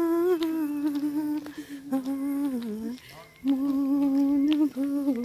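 A single voice humming a slow melody in long held notes, breaking off briefly about three seconds in.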